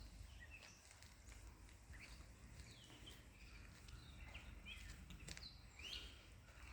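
Near silence with faint, short bird chirps every second or so.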